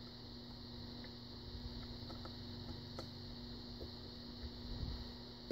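A few faint, sharp clicks of a steel lock pick working the pins inside a brass pin-tumbler lock cylinder while tension is held on the core, over a low steady hum. This is single-pin picking feedback as the pins are set, where T-pins are suspected.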